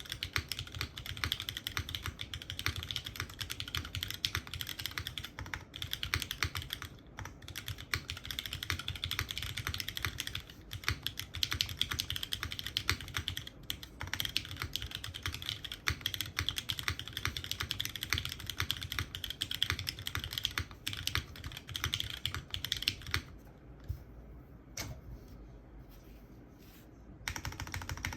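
Typing on a polycarbonate-case, gasket-mounted custom 65% mechanical keyboard with no foam, a full aluminium plate, GMK keycaps, and lubed, filmed Cherry MX Hyperglide Black linear switches. The key presses come fast and steady, then break off for about four seconds near the end with a single keystroke before the typing resumes.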